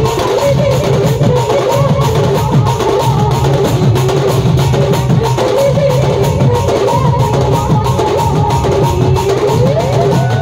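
Folk band music led by several shoulder-slung barrel drums beaten in a steady, driving rhythm, with a melody line weaving above them.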